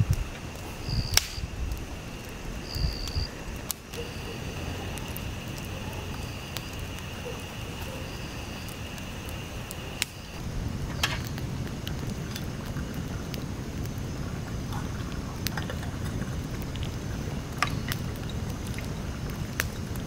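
Outdoor ambience: a steady high insect drone with short chirps repeating every couple of seconds, then, about ten seconds in, a sudden change to low wind rumble on the microphone with scattered clicks.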